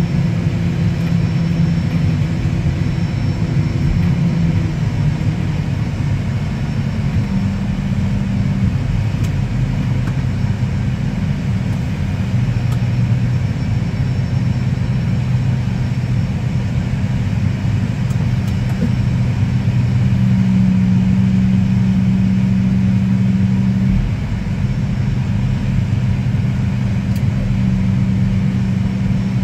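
Towbarless pushback tug's engine running under load as it pushes a Boeing 737-800 back, a steady low drone whose pitch steps up and down several times.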